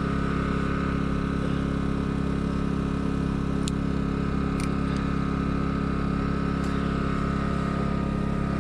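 Semi truck's diesel engine idling steadily, with two or three faint clicks near the middle.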